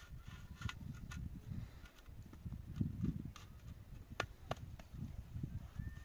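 Hollow concrete blocks being set and worked into wet mortar: scraping and shuffling with about six sharp clicks and knocks of block on block, over a low rumble.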